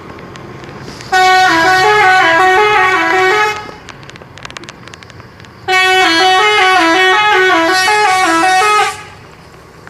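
Telolet horn, a multi-note musical vehicle horn, playing a stepping melody in two loud bursts, the first about two and a half seconds long and the second about three, with a short pause between them.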